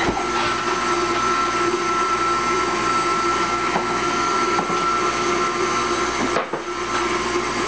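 Electric mixer motor running steadily, whirring as it keeps chocolate pudding mixing so it doesn't settle.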